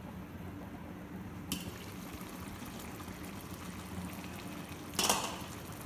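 Rice pulao simmering in an open pot, small bubbles popping on its surface over a steady low hum, with a short louder noisy burst about five seconds in.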